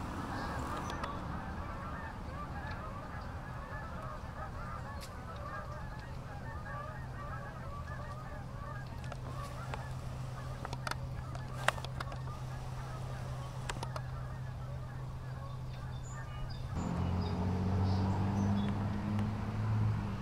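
A dense, constant chatter of many birds calling at once, over a steady low hum, with a few sharp clicks in the middle. About three-quarters of the way through, a louder low drone comes in.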